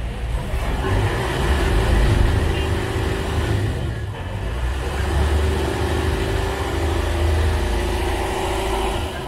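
Ferry boat's engine running under way with a steady low rumble, over water rushing and splashing along the hull. The sound swells twice as the boat pushes through the chop.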